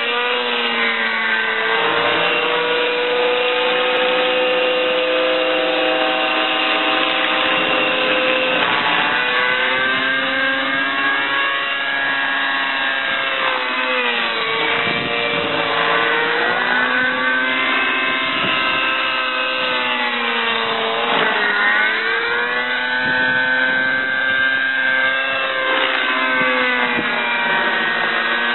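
Align T-Rex 600 nitro RC helicopter in flight, its two-stroke glow engine and rotor running at a high, steady pitch. The pitch dips and swoops back up three times as it manoeuvres.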